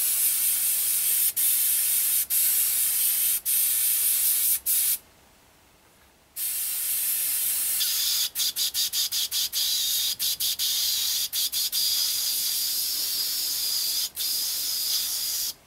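Airbrush hissing as it is cleaned out, air blasting through it with brief breaks as the trigger is let go. It stops for about a second and a half about five seconds in. When it resumes, a higher whistling note is added, and it is pulsed rapidly on and off for a few seconds.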